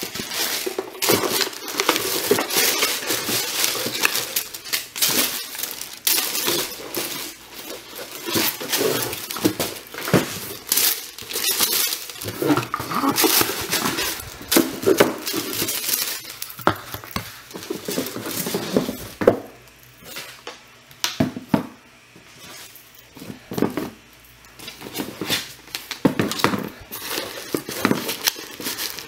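Gucci Ace sneakers and their packaging being handled: irregular rustling, rubbing and light knocks, quieter for a few seconds about two-thirds of the way through.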